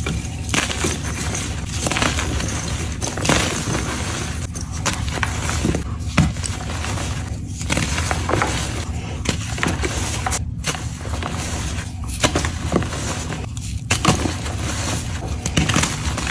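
Concrete being mixed: a continuous gritty scraping and crunching, dotted with many small clicks and crackles.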